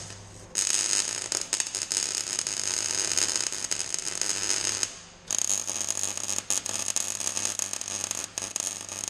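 Electric arc welding on steel: two long runs of crackling, sizzling arc, about four seconds each with a short pause between, over the steady hum of the welder.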